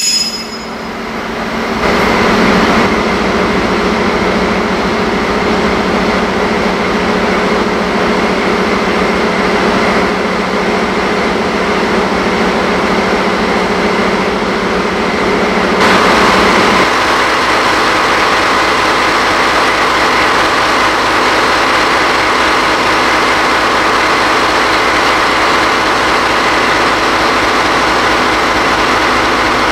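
DD16 diesel-hydraulic locomotive's diesel engine running at a steady idle. About sixteen seconds in its note changes and then holds steady again.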